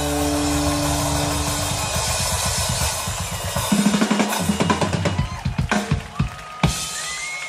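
Live rock band ending a song: a sustained chord rings out for about two seconds, then a drum-kit fill of tom, bass drum and cymbal hits builds to a final crash near the end.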